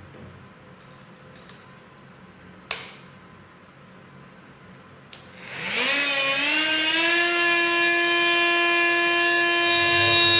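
Bosch PMF 250 CES oscillating multi-tool switched on with a click about five seconds in, its motor winding up in pitch for about a second and then holding a steady high whine. Before that there are a few light clicks and one sharp click of the tool being handled.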